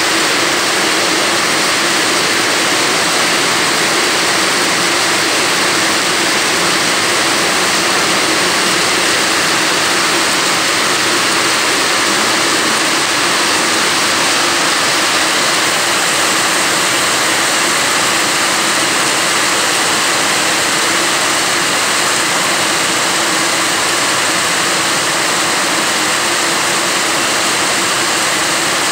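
Heavy rain falling on a steel canopy roof and wet concrete pavement, a dense, even rush that runs without a break.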